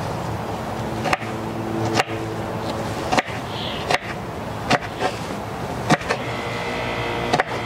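Knife chopping sweet peppers, about seven sharp single strokes spaced roughly a second apart, over a steady background hum.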